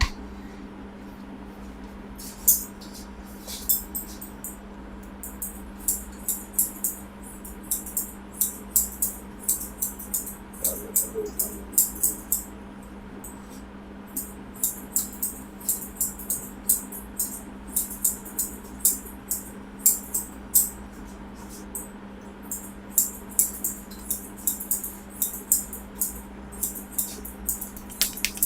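Hands tapping and rubbing on a head and hair during an Indian head massage: quick, crisp, uneven taps, several a second, over a steady low hum.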